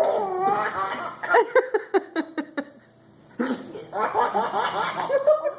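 Baby giggling with the hiccups: runs of short, high-pitched laugh bursts, a brief pause about halfway, then another run of giggles.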